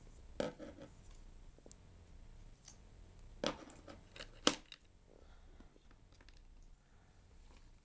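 A few short, sharp clicks and light scrapes from hands handling the internal parts of an opened MacBook Unibody. The loudest click comes about four and a half seconds in.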